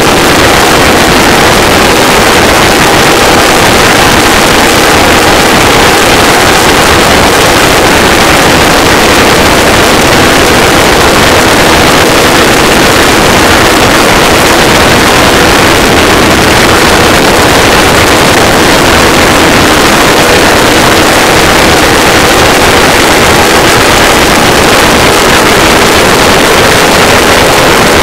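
Two pulse jet engines running together, a very loud, unbroken drone that holds steady throughout.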